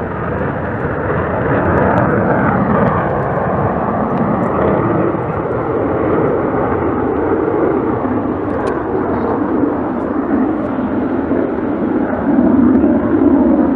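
Aircraft flying past: a loud, steady engine noise with slowly sweeping tones, growing louder over the first seconds and swelling again near the end.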